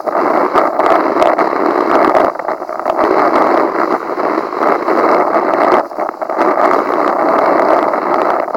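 Steady rushing of strong wind on the microphone and a kiteboard skimming over choppy water at speed, dipping briefly about two seconds in and again near six seconds.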